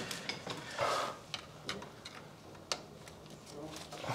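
A few light, separate clicks and taps as a gloved hand and a screwdriver work on the plastic surge protection device and its enclosure, with a brief rustle of handling about a second in. A faint steady hum runs underneath.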